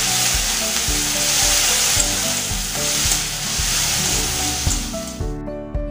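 Onion paste frying in hot oil with whole spices in a metal kadai: a steady sizzle while a metal spatula stirs it. The sizzle cuts off suddenly about five seconds in.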